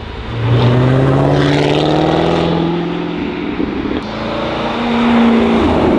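Corvette V8 engine accelerating under load, its note climbing steadily in pitch. The note drops away briefly about four seconds in, then climbs again.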